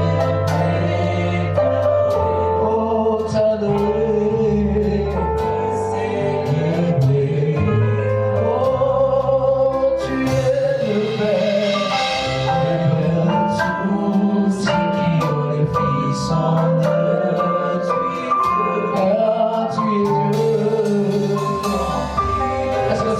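Live gospel worship music: a band with held bass notes and steady drum hits accompanying group singing.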